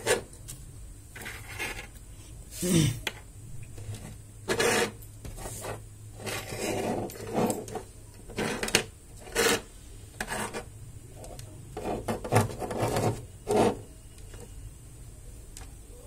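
Electronics boards and jumper wires being handled and slid across a tabletop: irregular scrapes, rubs and sharp clicks that stop about two seconds before the end.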